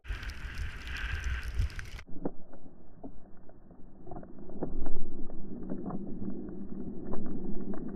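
Skis running through snow, hissing and scraping, with wind rushing over an action camera's microphone. The wind noise is loud and bright for the first two seconds, then turns duller, with a steady rumble and many short scrapes.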